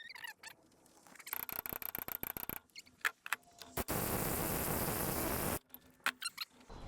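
Tools working on the rear differential's pinion while the pinion nut is tightened: about a second of rapid rattling clicks, then a steady hiss lasting about two seconds, with scattered knocks between.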